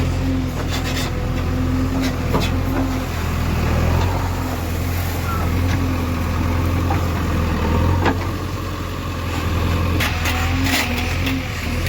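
Diesel engine of a JCB 3DX backhoe loader running steadily as the machine travels, a strong low drone with scattered rattles and clicks.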